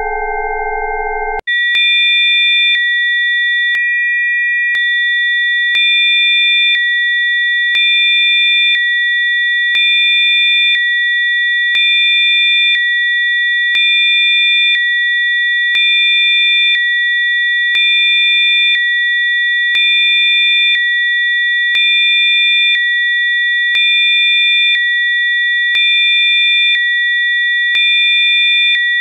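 Electronically generated pure sine tones played as Rife frequencies. A lower pair of steady tones switches abruptly, about a second and a half in, to a higher chord of steady tones. That chord swells slightly about every two seconds.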